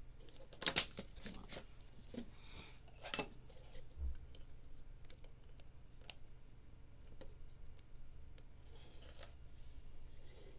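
Trading cards in rigid plastic toploaders being handled and set down on a table: scattered light plastic clicks and rubbing, the loudest a few sharp clicks about a second in, with a dull bump around four seconds in.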